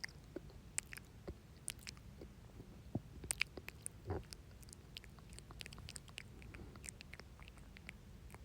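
Wet mouth sounds of saliva: irregular, sharp little clicks and smacks, with a short low sound about four seconds in.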